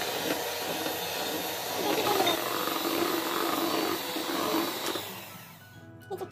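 Electric hand mixer whirring as its beaters whip egg batter in a plastic bowl, then switched off about five seconds in, the motor winding down.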